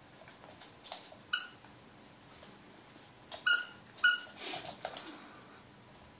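Plush squeaky toy squeaking as a border terrier puppy bites it: four short squeaks, two of them close together, followed by a brief scuffle of the toy and paws on the wooden floor.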